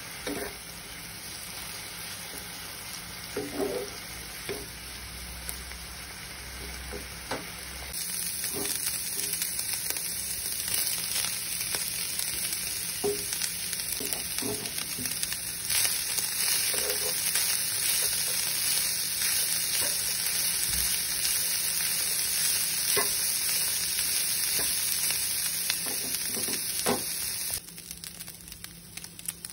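Minced chicken and chopped onion frying in oil in a nonstick pan: a steady sizzle with scattered taps and scrapes of a spatula stirring. The sizzle gets louder about a quarter of the way in and drops off sharply near the end.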